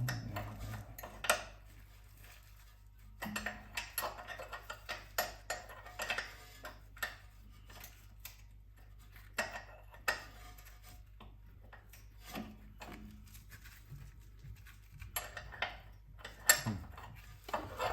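Metal hand tools, sockets and wrenches, clinking and clattering in irregular clicks and knocks as they are handled.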